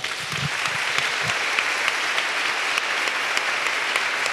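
An audience applauding steadily in a hall, a dense even patter of many hands clapping that starts as the guest of honour is announced.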